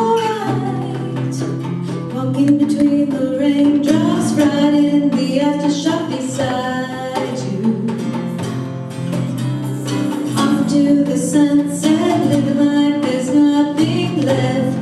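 Live acoustic music: a woman singing a slow melody over a strummed acoustic guitar, with hand drumming on a djembe.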